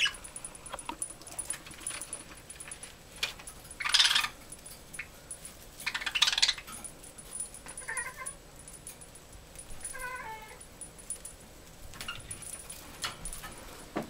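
Several budgerigars chirping and chattering, with scattered light clicks and rattles, and two louder harsh bursts about four and six seconds in.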